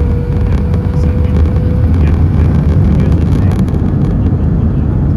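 Airbus A320 cabin noise from a window seat: a loud, steady, deep rumble of the jet engines and airflow, with a steady whine that fades out about two seconds in.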